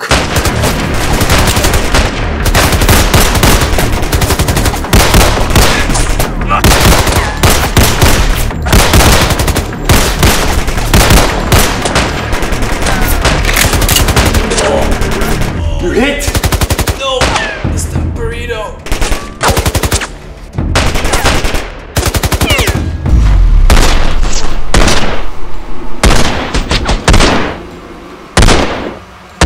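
Gunfire in a shootout: many handgun shots in rapid, almost unbroken volleys, breaking in places into separate shots with short pauses.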